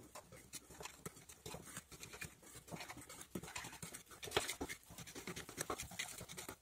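Metal spoon stirring a thick batter of almond powder, flour, sugar and egg whites in a ceramic bowl: many quick, irregular wet scrapes with light taps of the spoon against the bowl.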